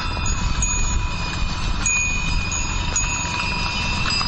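Bells on a caravan of pack horses ringing steadily as the animals walk, their notes re-struck every second or so over a low rumble.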